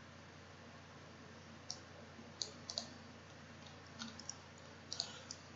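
Computer mouse clicking: about eight quick, faint clicks scattered through the last few seconds over a low steady hiss.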